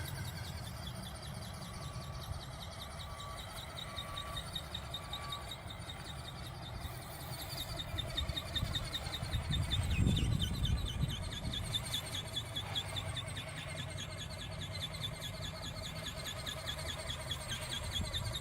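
Sambird RC seagull model plane's motor and propeller giving a high, fast-pulsing whine, over wind buffeting the microphone with a strong gust about halfway through. A couple of seconds in there are four short, evenly spaced beeps.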